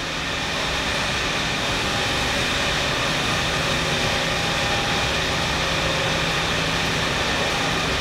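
Steady factory-floor noise of running machinery and ventilation: a continuous hum and hiss with several constant tones.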